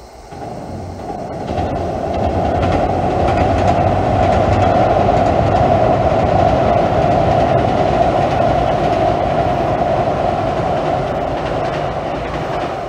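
Electric train running over a steel girder railway bridge: the running noise builds over the first two seconds, holds steady, and begins to fade near the end.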